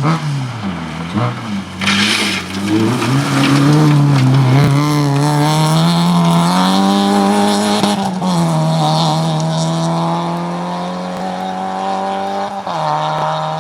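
Fiat Cinquecento rally car driven hard. The engine revs up and down through the first half, with a burst of tyre or gravel noise about two seconds in. It then holds steady at high revs, with a sharp change in engine note near the end.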